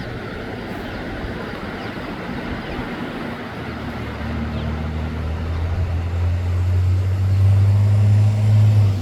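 Road traffic on a bridge: a steady hiss of passing traffic, with a vehicle's low engine hum coming in about four seconds in and growing louder as it approaches.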